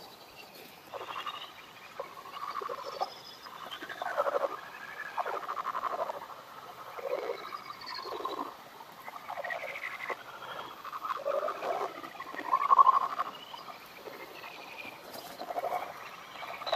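Bat detector output of lesser horseshoe bats' echolocation calls: irregular short warbling chirps, about one a second, from bats active around the roost.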